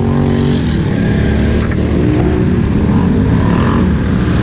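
ATV engine running at high revs under load, pushing through a mud hole; the pitch shifts a little as the throttle changes.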